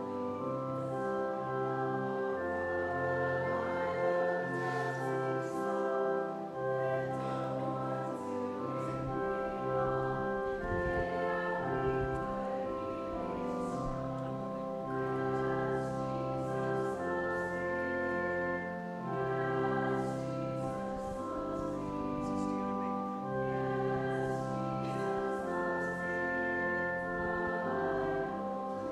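Church organ playing slow, sustained chords, each held note steady until the next chord change.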